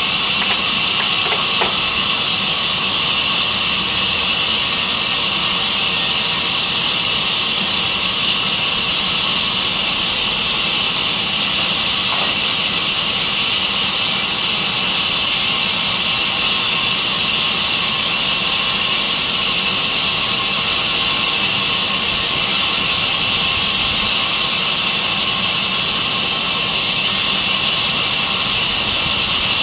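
Sawmill saw machine running steadily with a continuous hissing noise.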